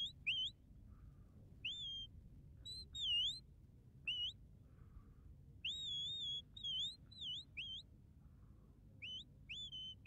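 Shepherd's whistle blown in a run of short notes that rise, dip and swoop, with a couple held longer, one about six seconds in. These are whistle commands directing working sheepdogs.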